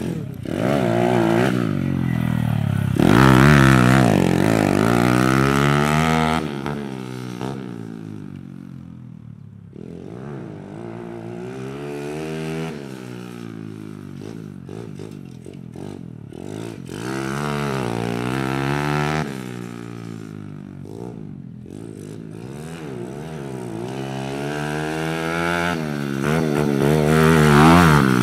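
Small pit-bike motorcycle riding laps of a dirt turn track, its engine revving up and easing off again and again through the corners. It is loudest as it passes close about three seconds in and again near the end, and fainter in the middle as it rides farther off.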